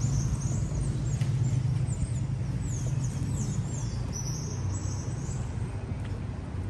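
Steady low rumble of a vehicle with many birds chirping, in short high calls that slide down in pitch.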